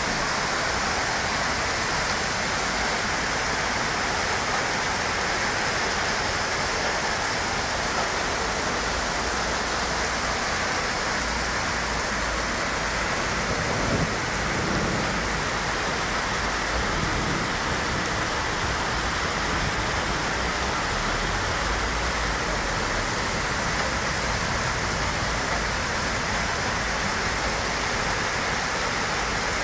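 Steady rain falling on wet asphalt and parked cars, an even hiss.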